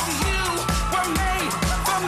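Dance music with a steady beat: a kick drum thumping about twice a second under percussion and melodic lines.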